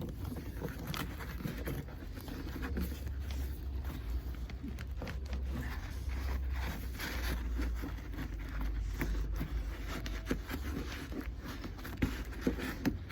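New car carpet rustling and scraping as it is pushed and smoothed into place on the floor pan, with scattered short scrapes over a steady low hum.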